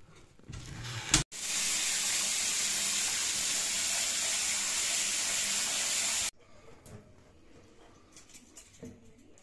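Water running steadily from the tap into a bathtub, starting and stopping abruptly, just after a sharp click about a second in. Faint handling knocks follow.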